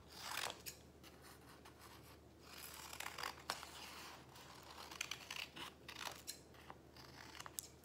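Hand scissors cutting through a folded sheet of paper: a run of irregular snips, with paper rustling between them.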